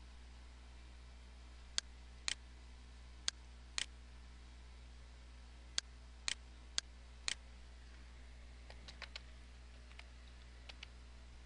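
Computer mouse buttons clicking sharply, about eight clicks in pairs. Near the end come a few softer, quicker keyboard taps as a word is typed. A steady low hum runs underneath.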